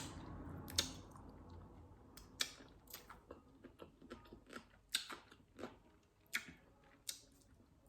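A person chewing crisp unripe green mango: a run of short, sharp crunches at an uneven pace, about two a second.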